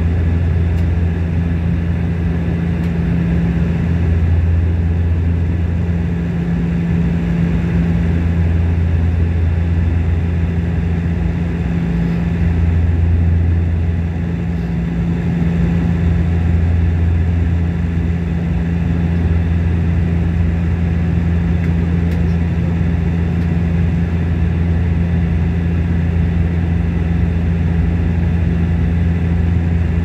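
Steady cabin drone of a Bombardier Q400's twin turboprop engines and propellers: a deep hum with a second tone above it, swelling and fading slightly every few seconds, over a rushing noise.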